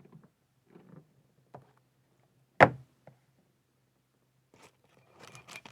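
Trading cards being handled: faint scattered rustles and taps, one sharp tap about two and a half seconds in, and rustling and scraping near the end.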